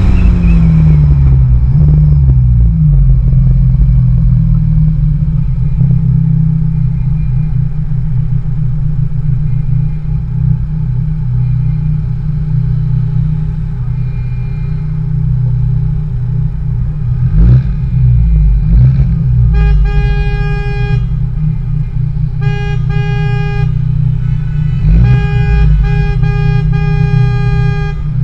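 Car engines running at parade pace, their revs dropping over the first few seconds and then settling to a steady low rumble. In the last third a car horn sounds three times, the final blast broken into a few short toots.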